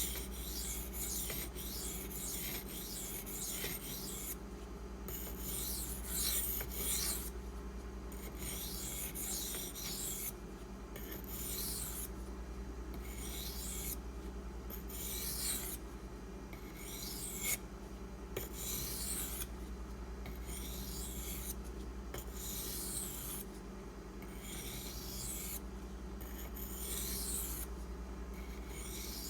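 A Maxamet-steel knife blade stroked across a 1000-grit sharpening stone, giving a run of hissy scraping strokes about one a second, with short pauses between sets, as the edge is ground toward the apex.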